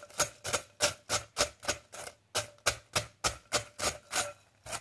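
Wooden pestle pounding crispy dried rice (khao khop) in a metal mortar bowl, a steady run of sharp knocks at about four to five strokes a second that crush the rice into coarse pieces, with a brief pause about two seconds in.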